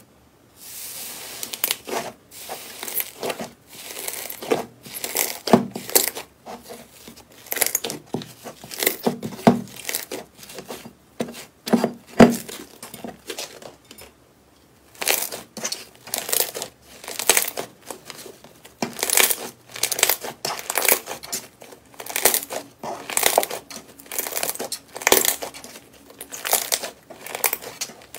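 Pink slime pressed and squeezed by hand, giving off bursts of many short crackles and crunches, with a brief pause about halfway through.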